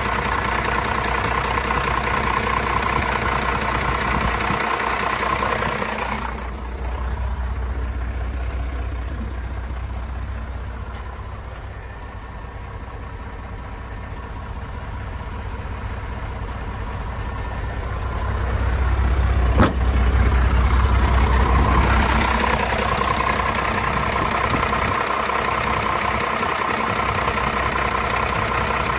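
1989 12-valve Cummins 5.9-litre inline-six diesel idling steadily. From about six seconds in it is heard muffled from inside the cab for some fifteen seconds, with a single sharp click near the end of that stretch, then again clearly from the engine bay.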